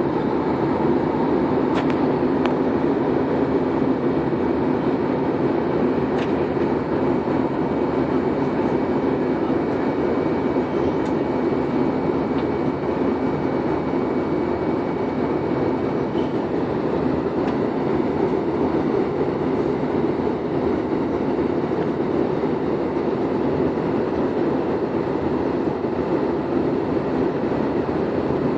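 Steady airliner cabin noise in flight: the even rush of engines and airflow heard from inside the cabin, with a faint high whine for the first half and a few light clicks.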